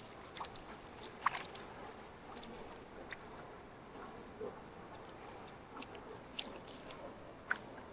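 Jungle river flowing: a faint, steady rush of water with scattered light clicks and splashes, the sharpest about a second in and near the end.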